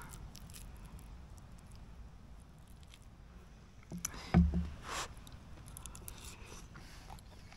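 Quiet eating sounds: a fork scraping and clicking on a paper plate, and chewing. A short low thump comes a little past halfway, with a couple of sharper clicks around it.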